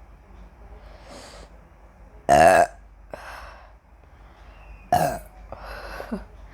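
A woman burping up the gas from chugged carbonated Coca-Cola: two loud, short burps, one about two seconds in and another about five seconds in, with a few fainter sounds between them.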